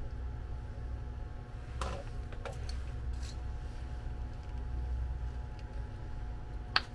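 Plastic wiring connectors on a hub motor's cable being unplugged and handled: a few light clicks, then one sharper click near the end, over a steady low hum.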